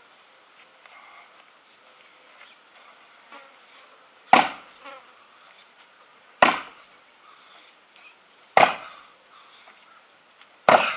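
An axe chopping a round of wood: four sharp blows about two seconds apart, each dying away quickly.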